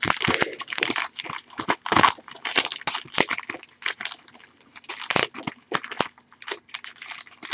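Sealed trading-card packs being shuffled together by hand on a table, their wrappers crinkling and crackling in quick irregular bursts.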